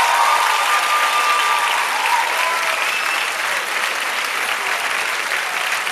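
Theatre audience applauding: dense, even clapping that eases off slightly over the few seconds.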